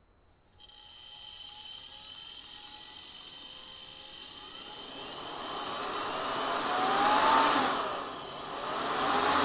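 Electrolux motor with a fan impeller, wired straight to its brushes and fed from a Variac, starting about half a second in and spinning up with a steady whine that grows louder; in the second half its whine rises and falls in pitch twice.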